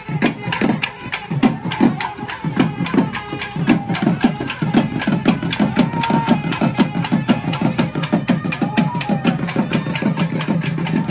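Traditional Tamil temple festival drumming: a fast, steady beat of drum strokes, several a second, with a couple of brief held high notes over it.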